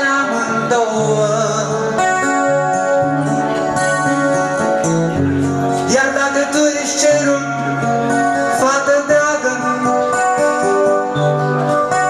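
A man singing a Romanian folk-style song while strumming an acoustic-electric guitar, with held, sliding vocal notes over the guitar.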